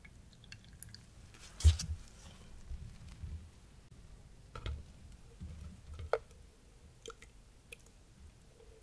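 Kitchen handling sounds: one sharp knock about two seconds in, then a few light clinks and taps, one of them ringing briefly, as a metal fine-mesh strainer is set over a plastic measuring jug. Soft wet squishing and dripping of thick canelé batter accompanies them.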